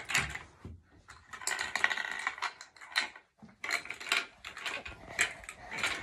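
Small plastic ice-block pieces of a tabletop penguin ice-breaking game clicking and clattering as they are handled and fitted back into the plastic frame, with a dense run of clicks about one and a half seconds in.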